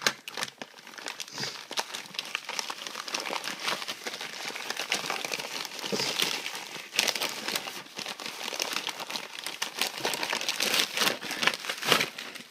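A mail package being opened by hand: its paper and plastic wrapping crinkling, crackling and tearing in a dense, irregular stream.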